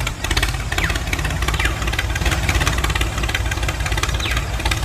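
Tractor engine idling with a steady, rapid putter. A few short high chirps sound over it.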